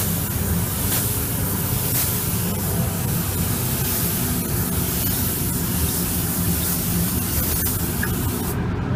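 Compressed-air paint spray gun hissing steadily as it lays on base coat for a blend, over a low steady hum. The hiss stops abruptly near the end as the trigger is released.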